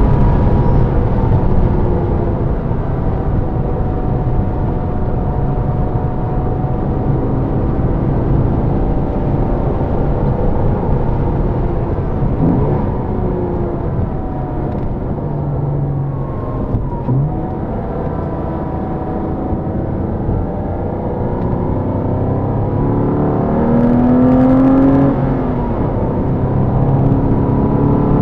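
Car engine heard from inside the car at track pace, its pitch climbing under acceleration and falling through shifts and braking, several times over, above a steady roar of road and tyre noise.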